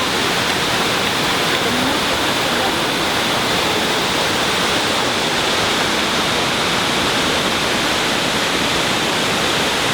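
Mae Klang Waterfall's water rushing steadily, a loud, even, unbroken rush of falling and splashing water.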